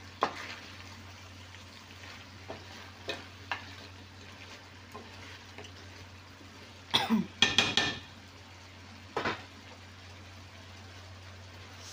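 A spoon stirring a seafood boil of shrimp, mussels, corn and potatoes in a stainless steel pan, the food sizzling faintly over a steady low hum, with a few small knocks. About seven seconds in comes a quick run of louder metallic clanks with a short ring, and one more knock a second or so later.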